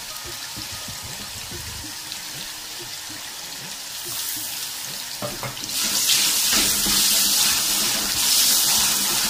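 Onion paste frying in oil in an aluminium pot, a steady sizzle. About six seconds in it gets louder, as garlic-ginger-green chili paste goes in and is stirred with a wooden spoon.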